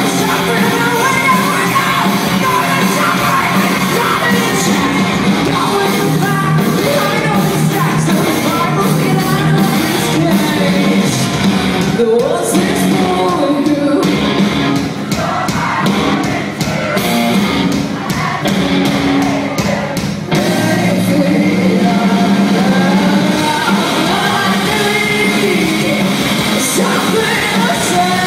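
Live rock band playing loudly with a woman singing lead, heard from the audience in a large, echoing hall.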